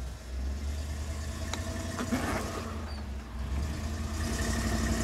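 Early Ford Bronco's engine running at low revs as the truck crawls over rocks. There is a single click about a second and a half in, and the sound grows louder near the end as it works forward.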